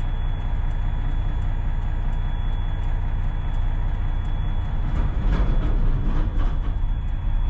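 Inside a semi truck's cab on rough, broken pavement: the diesel engine and tyres make a steady low rumble, with a louder stretch of knocks and rattles about five seconds in as the truck jolts over the bad road.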